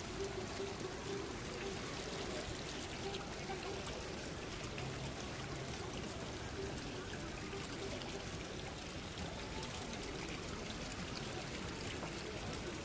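Steady splashing and trickling of water from garden fountains and a shallow fountain channel, with faint voices of people nearby.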